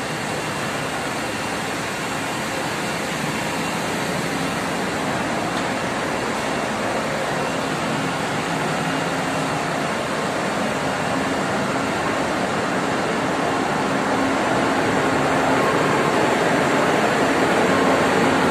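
The steady, dense noise of a ship's engine room with its machinery running, engines, pumps and blowers together, with faint steady hums underneath. It grows slowly louder as the walk nears the big engine units.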